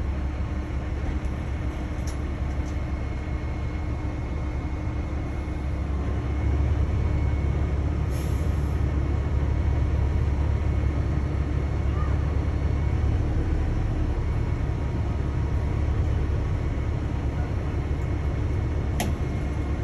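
Heavy diesel truck engine idling: a steady low rumble with a faint hum, growing a little louder about six seconds in.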